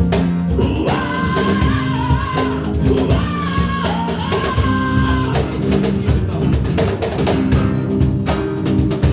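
Instrumental passage of a rock song: guitars and a drum kit keeping a steady beat, with a wavering melody line riding over them for the first few seconds.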